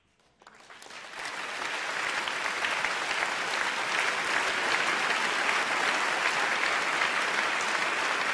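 Audience applauding, starting from silence and swelling over the first couple of seconds, then holding steady.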